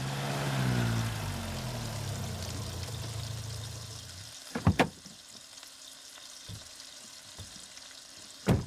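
Food sizzling in a pan, under the low hum of a car engine pulling in that fades out about four seconds in. Two sharp knocks, one about halfway through and one near the end.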